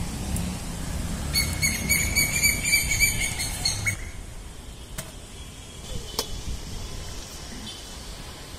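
Pruning shears snipping through a Mangalore cucumber's stem, two sharp clicks about five and six seconds in. Before that there is rustling of leaves as hands work in the plants, and a high chirp pulsing rapidly for about two and a half seconds.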